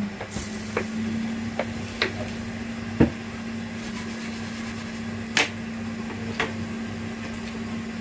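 Scattered light clicks and taps of laptop motherboard parts being handled on a workbench, the sharpest about three seconds in, over a steady electrical hum.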